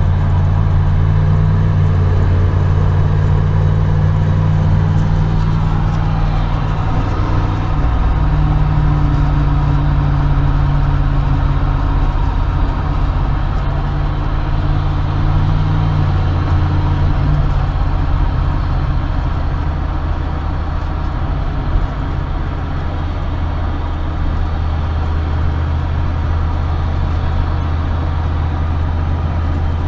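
A 1994 Chevy Silverado's 5.7-litre (350) V8 running at road speed, with road noise, freshly treated with Seafoam. The low engine drone shifts in pitch a couple of times, about 8 and 17 seconds in.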